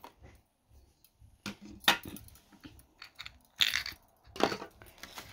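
Hard plastic hand-blender parts and attachments clicking and clattering as they are handled and set down on a glass tabletop: a handful of separate knocks and clicks, the sharpest about two seconds in.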